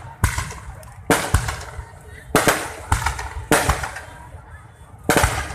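Fireworks going off: five loud bursts about a second apart, each a quick cluster of sharp cracks that trails off in crackling.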